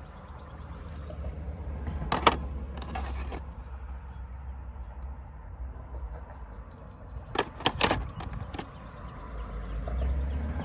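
Hand tools being handled: a few sharp metallic clicks and rattles, about two seconds in and again in a cluster near eight seconds, as a wobble extension and socket are taken out and fitted, over a low steady rumble.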